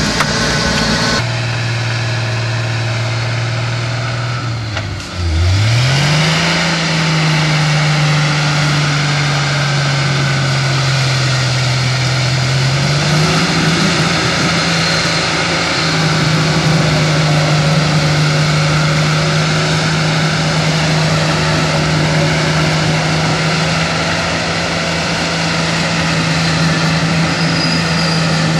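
Chevy short-bed pickup's engine revving hard and held at high revs as it tries to pull out of a mud hole with the wheels spinning. About five seconds in the revs drop sharply and then climb again. They sag slowly, step up again around thirteen seconds, and hold steady.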